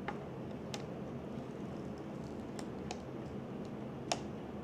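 Light, irregular clicks and ticks of a small metal weeding tool picking the waste out of a freshly cut sheet, about half a dozen, the sharpest about four seconds in, over a faint steady room hum.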